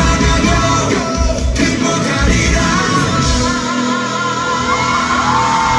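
Live rock band playing with a singer; about two-thirds of the way in the drums and bass beat drop out and the singer holds one long high note over the remaining band.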